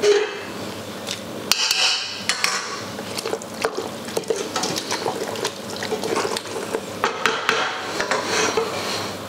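A spoon clinking, knocking and scraping against metal pans at irregular moments while pasta shells are stirred and coated in tomato sauce.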